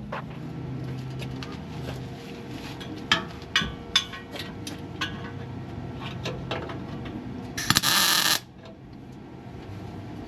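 Exhaust pipes being tack welded: several sharp metallic clicks and knocks, then, about eight seconds in, one short crackling burst of the welder laying a tack, under a second long.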